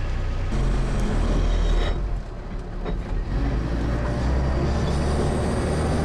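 All-terrain vehicle's engine running with a steady low drone, heard from inside the cabin; it grows louder about half a second in and dips briefly around two to three seconds in.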